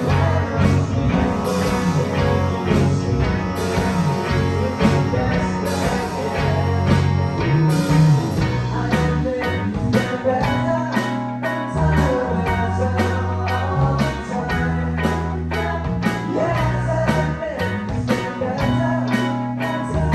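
Live band rehearsing a song: singing over electric guitar, bass and drums. A steady cymbal beat becomes denser about eight seconds in.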